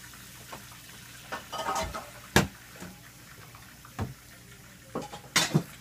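People slurping and chewing instant noodles: a few short slurps and mouth noises, the loudest a sharp click a little over two seconds in.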